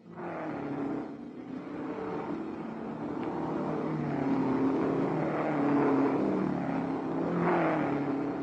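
Racing cars' engines at speed on a circuit, passing by. One sweeps past right at the start, the sound builds through the middle, and another car passes near the end.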